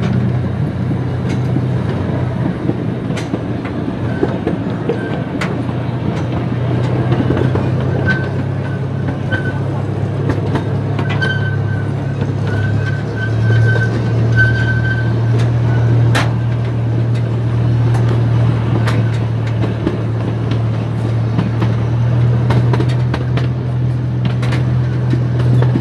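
Small park train running with open passenger cars: a steady low drone from its motor under the rolling noise, with scattered sharp clicks of the wheels over rail joints.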